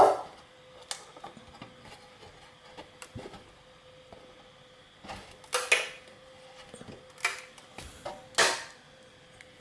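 Handling clatter of a flexible steel 3D-printer build plate being bent to pop a print off: scattered clicks and knocks, the loudest about a second and a half apart near the middle and again near the end.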